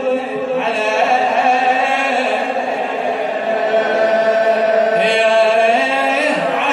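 A man chanting a Shia na'i lament, drawing out long held notes on a single voice, with a new phrase starting about five seconds in.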